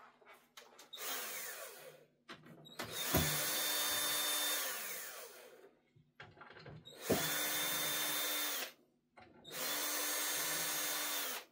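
Cordless drill-driver running in four bursts, the first short and quieter, the next three about two seconds each, its motor winding down in pitch each time the trigger is let go. It is backing out the screws that hold the bass driver in a speaker cabinet.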